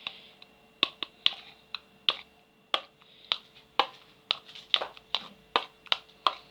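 Stirring utensil clicking and tapping against the side of a container, a string of sharp irregular clicks about two or three a second, while a shampoo-and-salt slime mixture is stirred.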